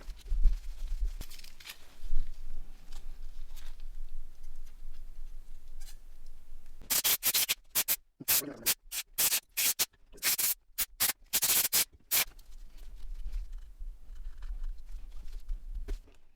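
Faint rubbing and scrubbing of small parts during cleaning. From about seven seconds in, a rapid run of short hissing spray bursts stops about five seconds later.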